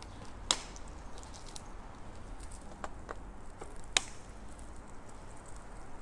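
Low steady rumble with scattered sharp clicks and ticks, two of them much louder, about half a second in and about four seconds in: a bicycle rattling as it rides along.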